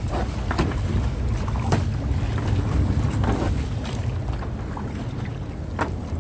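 Strong wind buffeting the microphone in a steady low rumble, with a few short splashes every second or two from kayak paddle strokes in choppy sea water.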